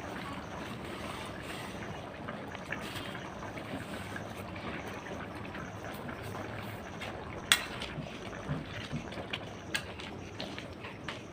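Steady hiss of trickling or bubbling liquid, with one sharp clack about halfway through and a few lighter knocks after it.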